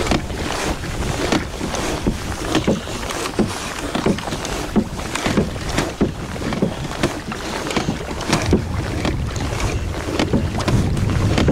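A Hobie Pro Angler kayak moving over choppy water: regular splashes and knocks of water against the hull, about three every two seconds, under a steady low rumble of wind on the microphone.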